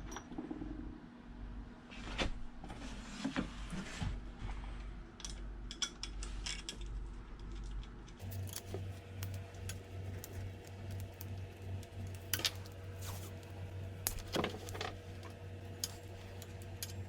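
Small metal pieces clicking and clinking as bolts used for wheel weights are handled and set against a motorcycle rim, with a steady low hum underneath.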